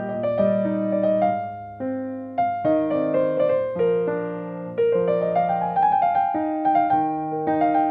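Soft background piano music: a slow melody over held chords, each note struck and fading.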